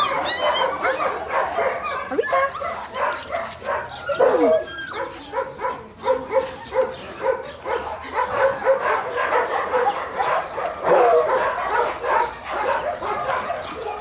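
Puppies yapping and whining: runs of short high yips, about three a second in places, with a few sliding whimpers.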